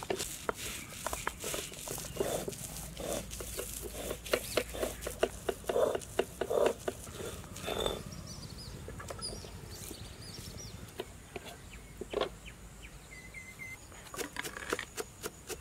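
Cylindrical stone roller of an ammikkal grinding dried red chillies on its stone slab, a quick run of stone-on-stone knocks and scrapes through the first half. Near the end a knife chops coriander on a wooden block in a few sharp strikes.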